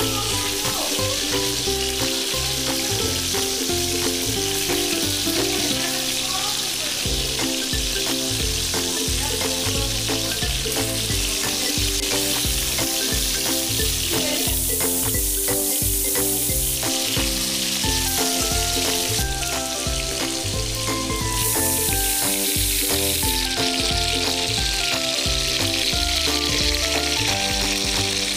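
Marinated chicken drumsticks frying in hot oil in a non-stick pan: a steady sizzle, with background music underneath.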